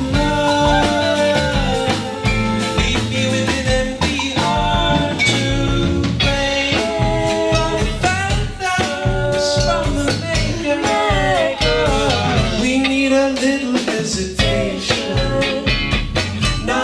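Live band playing an upbeat groove: drums and bass keep a steady beat under several melodic lines.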